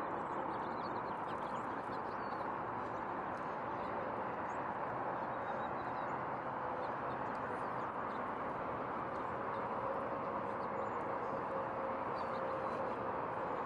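Steady roar of distant freeway traffic, an even wash of sound that holds level throughout, with a few faint bird chirps above it.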